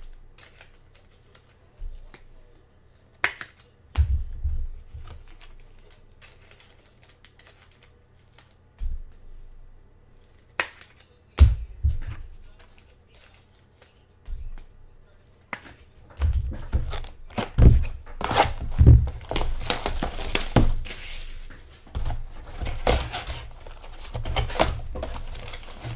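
Scattered taps and clicks of cards and packaging being handled, then from about two-thirds of the way through a dense run of crinkling and tearing as trading-card pack wrappers are ripped open and crumpled.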